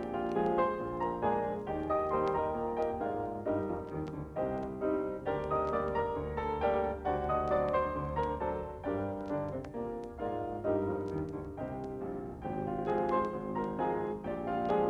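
Piano music, a steady stream of quick notes.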